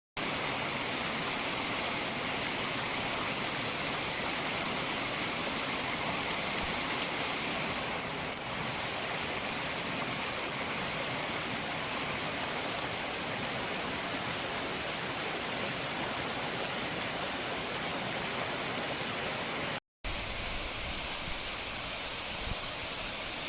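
Waterfall rushing steadily, a continuous hiss of falling water. It cuts out for a moment near the end, then carries on with a deeper rumble.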